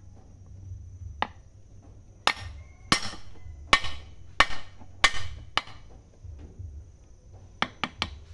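Metal knocks as a splined steel shaft is worked into the bearing of a Kubota DC70 HST pump housing: about ten short knocks at uneven spacing, some ringing briefly, with three quick ones near the end.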